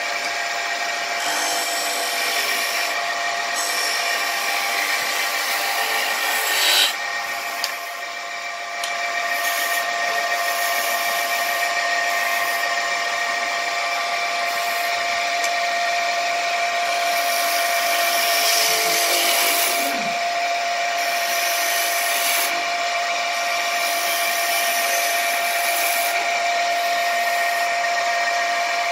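Wood lathe running with a steady motor whine over a rubbing hiss from the spinning wooden chair leg. The level briefly jumps and then dips about seven seconds in.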